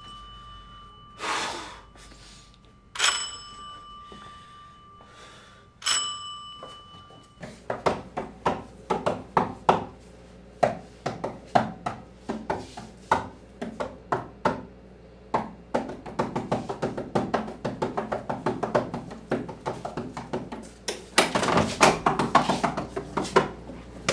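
Doorbell rings twice, each a single bright tone that dies away, about 3 and 6 seconds in. Then comes a long run of quick, irregular clicks and knocks, louder near the end.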